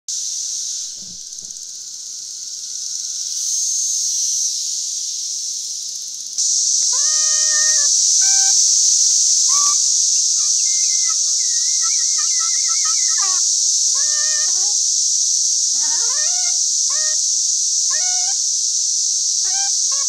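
A dense, steady chorus of 13-year periodical cicadas, growing louder about six seconds in, with a soprano saxophone joining at about seven seconds and playing short, separated phrases over it, some notes sliding up or bending.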